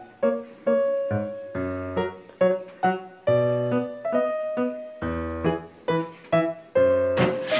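Background piano music: a melody of separate struck notes, two or three a second, each fading after it is played. A brief rush of noise sounds over it near the end.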